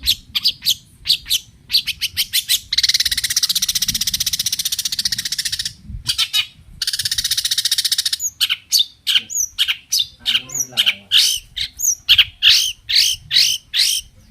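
Long-tailed shrike (cendet) singing loudly in agitated, aggressive song: quick sharp notes, then two long harsh rattles a few seconds in, then a run of clear sweeping whistled notes.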